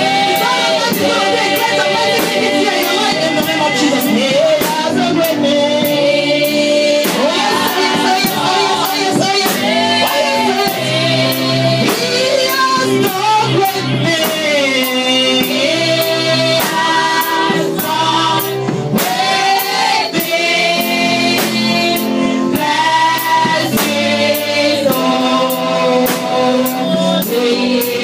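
Gospel worship song sung by a choir with band accompaniment over a steady percussion beat.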